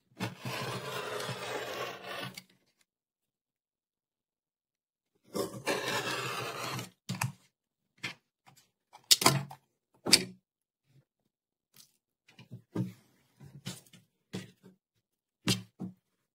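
Rotary cutter drawn along an acrylic quilting ruler, slicing through felted wool flannel on a cutting mat: two long cutting strokes, the first about two seconds, the second about a second and a half. After them come a string of short knocks and clicks.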